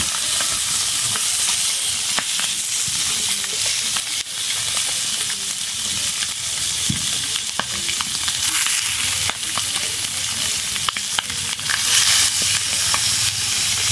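Pieces of already-boiled chicken sizzling in a nonstick skillet over a wood fire as they brown, a steady hiss with scattered pops. Near the end tongs turn the pieces.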